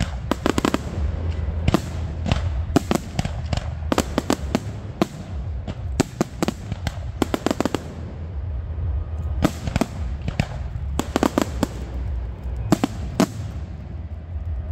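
Fireworks display: aerial shells bursting in quick succession and in clusters of rapid crackling pops, over a steady low rumble.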